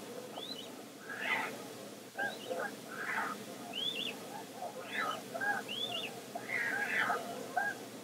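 Caspian terns and gulls calling repeatedly, harsh rasping calls mixed with short, high, arching cries, heard from a live stream played through computer speakers and picked up by the computer's microphone.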